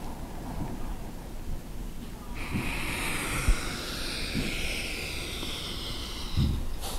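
A man's slow, audible breath while he holds a yoga pose: one long hiss of air lasting about four seconds, beginning about two seconds in, over a faint low room rumble.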